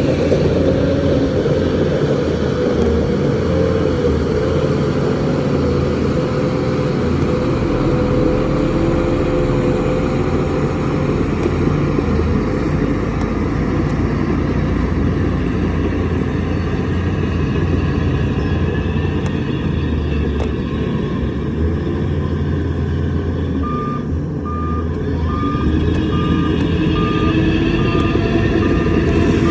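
Heavy construction machine's diesel engine running steadily under load. Near the end a reversing alarm starts beeping, about twice a second.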